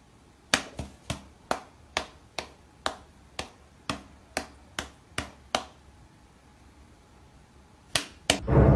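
A cat's paws slapping against a person's open palm: about a dozen quick, sharp smacks at roughly two a second, then a pause and two more near the end. Music starts just at the end.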